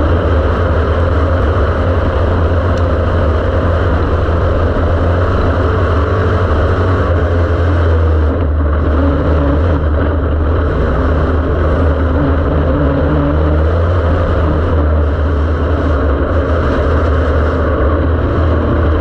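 Dirt-track race car's engine running hard at racing speed, heard from inside the cockpit: loud and steady, with no let-up.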